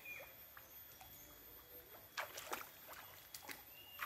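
Faint water sloshing and splashing as feet wade through a shallow stream, with a few short, sharper splashes about halfway through.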